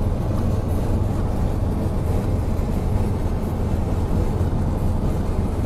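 Steady road and engine rumble inside a car's cabin while driving at highway speed.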